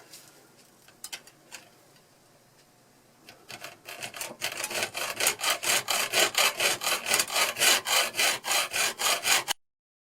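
A hand saw cutting into a flathead screw clamped in a vise, in fast, even back-and-forth strokes that start a few seconds in, grow louder and stop abruptly near the end. A few light handling clicks come before the sawing.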